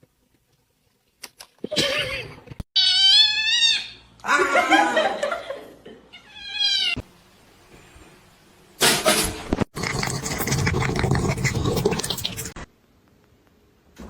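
Cat meowing and yowling: a drawn-out meow with wavering pitch about three seconds in and a shorter falling meow near seven seconds. Later comes a few seconds of loud rough noise.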